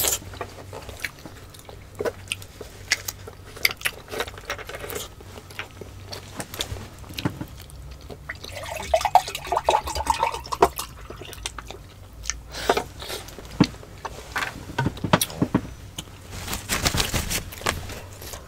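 Close-miked wet eating sounds of ripe mango slices being bitten and sucked, with scattered small mouth clicks and smacks. Near the end come louder swallowing sounds of juice being drunk.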